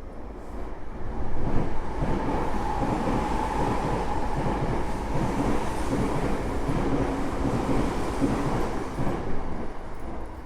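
Tokyo Metro 05 series subway train with Mitsubishi IGBT inverter control, heard from inside the car while running. The wheel and rail noise grows loud about a second and a half in, holds steady with a faint whine, and eases just before the end.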